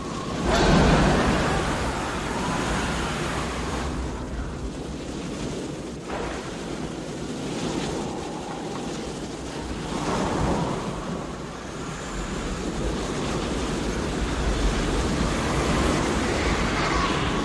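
Strong wind blowing in gusts. The loudest gust surges about a second in, and further gusts swell near the middle and toward the end.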